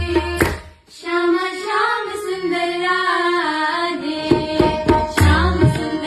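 Devotional bhajan music: a voice sings a held, wavering melody over percussion and deep drum beats. The music drops out briefly a little under a second in. The beats come back strongly about four seconds in.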